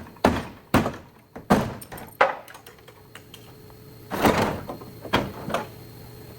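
A series of heavy knocks and thuds at uneven intervals, about seven in all, each dying away quickly: a cluster in the first two seconds and another about four to five and a half seconds in.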